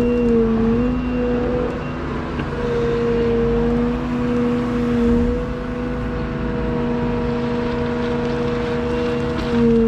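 Liebherr A913 Compact excavator's diesel engine and hydraulics running steadily under working load as the grading beam is worked. The engine note dips briefly in pitch about half a second in and again near the end.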